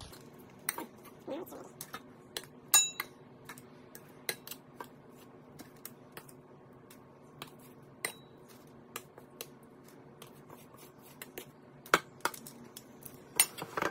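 Metal kitchen tongs clicking and clinking against a plate and a nonstick air fryer basket as raw chicken wings are picked up and set in. The clicks are sharp and irregular, with the loudest about three seconds in and twice near the end.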